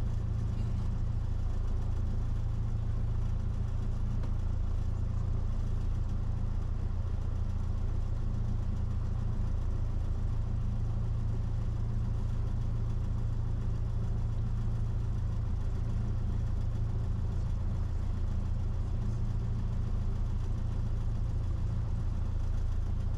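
Cessna 172's piston engine and propeller droning steadily: a low, even hum that holds the same power with no change in pitch.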